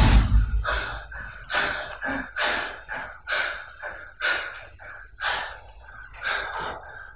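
A man panting hard, with quick, heavy breaths in and out, about two a second. The fading tail of a loud thud comes right at the start.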